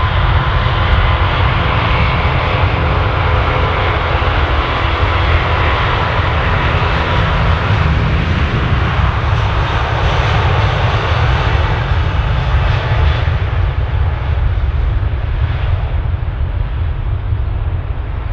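Airbus A380's four Rolls-Royce Trent 900 turbofans at takeoff thrust on the takeoff roll: a deep, steady rumble under a hissing roar. A faint whine fades about halfway through.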